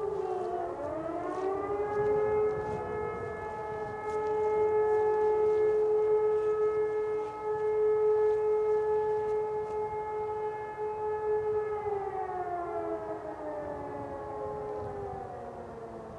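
Several E57 electromechanical sirens sounding together in the German fire-alarm signal. The loudest one is about half a kilometre away. Their tones wind up over about the first two seconds, hold steady for about ten seconds, then wind down near the end, with other sirens at different pitches overlapping.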